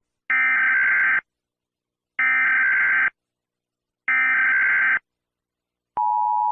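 Emergency Alert System SAME header: three identical bursts of buzzy data tones, each about a second long and a second apart, which open an emergency alert. About six seconds in, the steady two-tone EAS attention signal begins.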